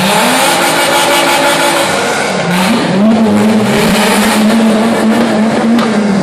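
Fiat Marea 2.4 20V's inline five-cylinder engine, breathing through a 5-into-1 exhaust header, revving up and holding high revs, dropping off about two seconds in, then revving up again and holding.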